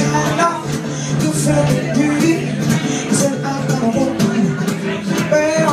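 Live acoustic guitar strummed in a steady rhythm, an instrumental stretch between sung verses.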